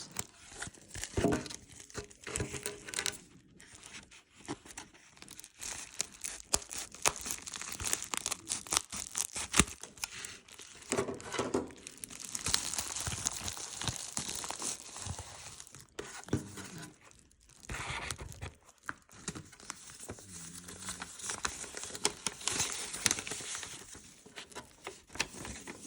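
Hands tearing open a mail package and crinkling its packaging: irregular rips, rustles and crackles.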